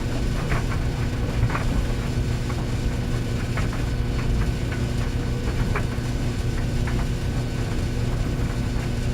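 Clothes dryer running: a steady hum from the motor and turning drum, with irregular light clicks and knocks through it.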